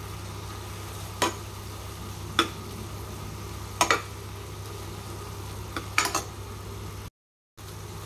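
Spoon stirring tomato-and-date khatta as it cooks in a pan, over a steady low sizzle, with a few sharp knocks of the spoon against the pan every second or two. The sound cuts out for a moment near the end.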